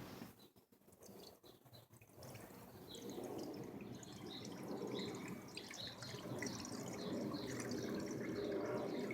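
Engine flush being poured from its bottle into the engine's oil filler: a liquid trickle with repeated glugs that starts about two seconds in and grows louder.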